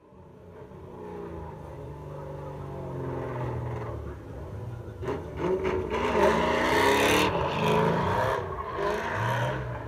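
Ford Mustang V8 revving up and down while doing donuts, growing louder about halfway through with a hiss of tyre squeal.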